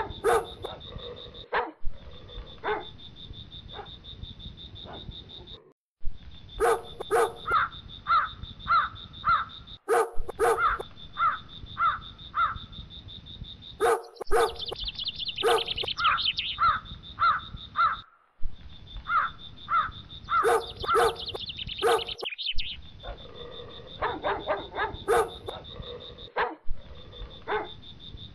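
A dog barking over and over in runs of about two barks a second, with a thin steady high tone behind and two stretches of buzzy high trilling in the middle. The sound cuts out abruptly to silence several times.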